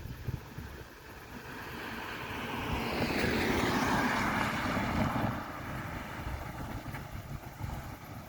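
A vehicle passing by: a rush of noise that swells over a couple of seconds, is loudest about three to five seconds in, and falls away quickly. Wind rumbles on the microphone throughout.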